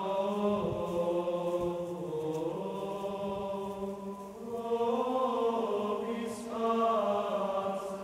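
Gregorian chant sung in unison by a men's schola of clerics, moving slowly from one long-held note to the next.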